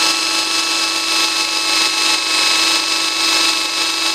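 Drill driver running steadily at one pitch as a 6.5 mm arrowhead-tip multi-purpose drill bit bores through a steel square tube, the bit cutting hot enough to smoke.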